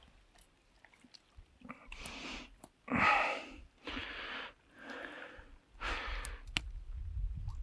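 A person breathing heavily close to the microphone, five breaths about a second apart, the loudest about three seconds in, with a few small clicks near the end.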